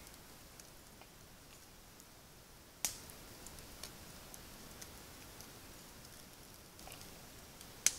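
Two sharp clicks about five seconds apart, with a few faint ticks between, over a quiet background.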